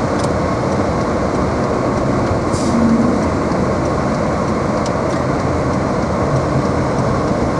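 Steady rumble of a car driving on snowy streets, heard from inside the cabin: tyre and engine noise mixed with the heater fan blowing.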